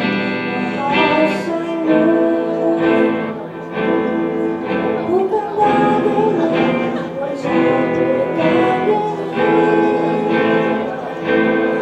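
Live rock band playing: electric guitars strumming chords on a steady beat over drums, with a woman singing.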